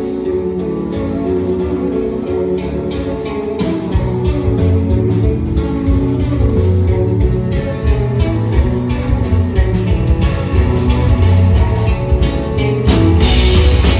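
Live band playing guitar-led music with drums. It opens on a sparser stretch without cymbals, the drums come back in about four seconds in, and the full band crashes back in near the end.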